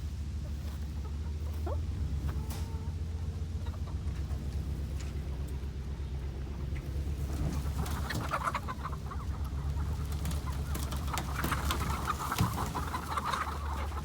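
Chickens clucking, sparse at first and then busy and overlapping from about halfway through, over a steady low engine drone from the truck towing the chicken coop.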